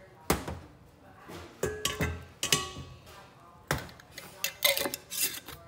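Stainless steel cookware and a glass jar being set down on a steel counter: a series of about seven sharp clanks and clinks, several ringing briefly.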